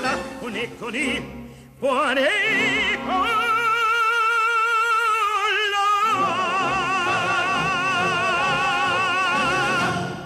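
A solo operatic voice singing with wide vibrato over a musical backing. About two seconds in it slides up into a long held note, and the music fades out at the very end.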